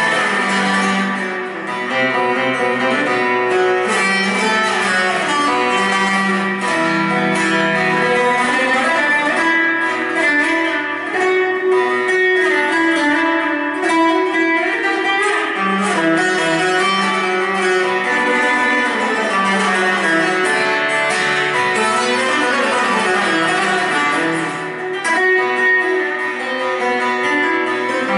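Bağlama, the Turkish long-necked saz, plucked in a folk melody, with a harmonica in a neck rack playing along in long held notes.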